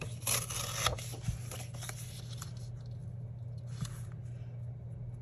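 Sheet of scrapbook paper torn by hand, the tear running for about the first second, followed by fainter rustling and sliding as the torn strip is laid and smoothed on a paper planner page.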